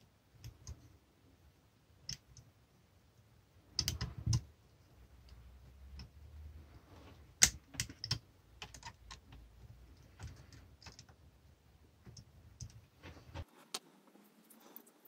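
Irregular clicks and knocks of hand tools and small metal parts being handled during a moped clutch job, with a loud cluster about four seconds in and sharp strikes near the middle. A faint low hum underneath stops abruptly near the end.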